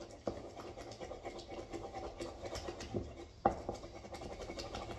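A utensil beating and scraping mashed banana in a bowl: soft, irregular scratching and stirring, with a few light knocks against the bowl, the clearest about three and a half seconds in.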